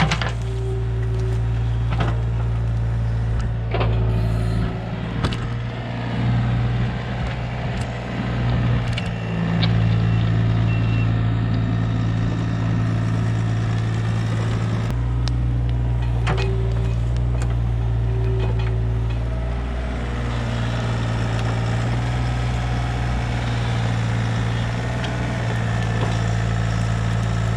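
Hitachi 35U mini excavator's diesel engine running steadily as the machine works, its note heavier for a few seconds around the middle, with occasional sharp knocks and cracks from the bucket and wood.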